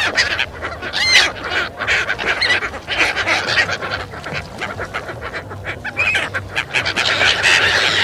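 A large flock of gulls calling, with many short calls overlapping throughout and one clear rising call about a second in.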